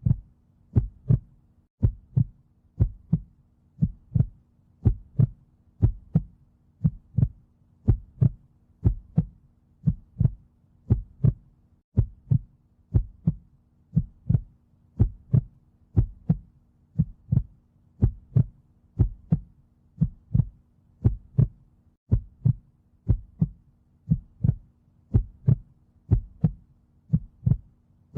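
Heartbeat beating steadily, each beat a low double thump (lub-dub), about one a second, over a faint steady hum.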